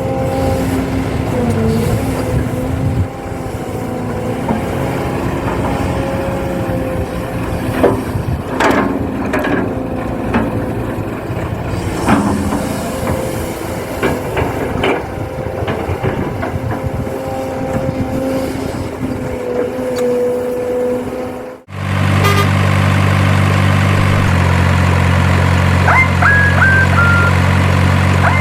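Radio-controlled model trucks and excavator at work: electric motors and gears whine steadily, with scattered clicks and knocks. After an abrupt cut about three-quarters of the way through, a steady, low simulated truck diesel engine drone takes over, stepping once in pitch, with a few short high beeps near the end.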